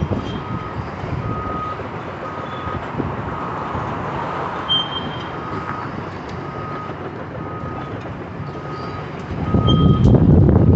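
Backup alarm on heavy demolition equipment beeping steadily, about one and a half beeps a second, over the continuous noise of the site. The noise grows louder near the end.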